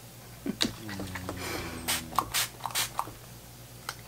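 Pump mister of a makeup setting spray spritzed three times, about half a second apart, each a short hissing puff. A person's low hum comes just before the sprays and runs into the first one.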